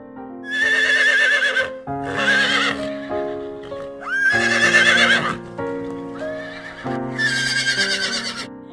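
Horse whinnying four times, each call about a second long with a wavering, quavering pitch, over background music.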